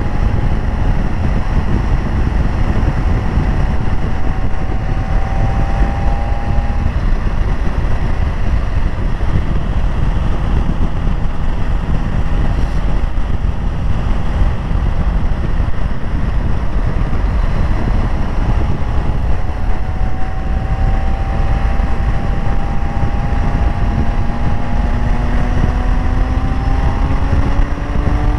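Motorcycle engine running on the road under heavy wind rush on the microphone. Its pitch rises slowly twice as the bike pulls through the corners: in the first several seconds, and again from about twenty seconds in.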